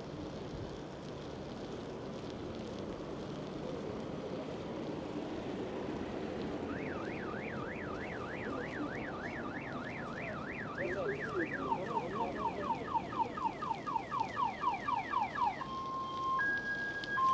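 Steady street and wind noise, then about seven seconds in a car alarm starts cycling through its tones: a fast up-and-down warble, then rapid falling chirps about three or four a second, then alternating high and low steady beeps near the end.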